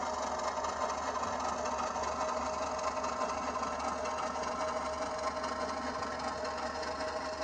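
HO-scale model diesel locomotive's sound decoder playing a steady diesel engine running sound through its small onboard speaker as the locomotive creeps onto the turntable bridge. The sound carries on without a break as the locomotive crosses onto the bridge rails of opposite polarity, the sign that the auto-reverser is keeping track power on.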